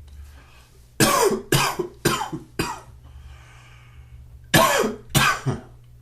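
A man coughing: a quick run of four coughs, then after a pause of about two seconds, two more.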